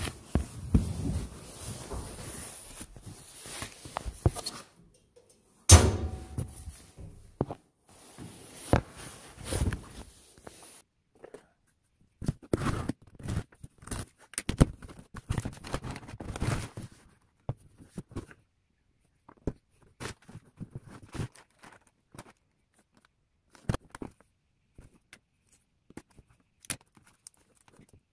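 Handling a cardboard delivery box: a sharp thump about six seconds in, then scattered rustling, scraping and taps as the taped box is opened, thinning to occasional light knocks near the end.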